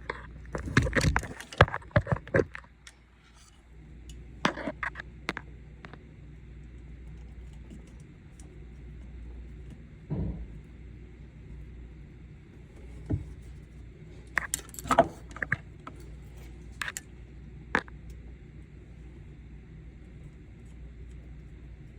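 Clicks, clinks and rattles of hands handling and joining the float switch's wires, in short clusters near the start, in the middle and again later, over a steady low hum.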